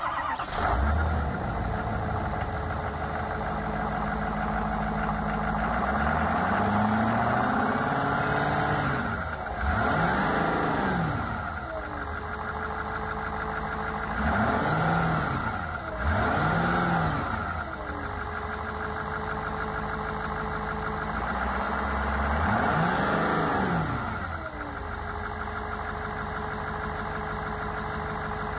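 Ford 6.7L Power Stroke turbo-diesel V8 idling, revved up and let back down about five times, each rev rising and falling in pitch, with a faint high whine that follows the bigger revs.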